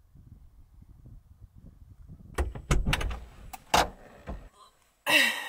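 Knocks and clunks at the open rear door of a Land Rover Defender camper, several sharp ones in quick succession starting about two seconds in. A short squeak comes near the end.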